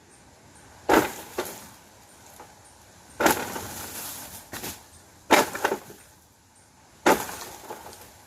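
Sharp woody cracks and knocks from jelly coconuts being picked: four loud strokes roughly two seconds apart, some followed by a smaller knock.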